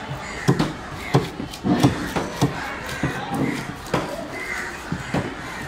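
Heavy knife chopping through a seer fish onto a wooden chopping block as it is cut into steaks: a string of sharp, irregular knocks, roughly two a second.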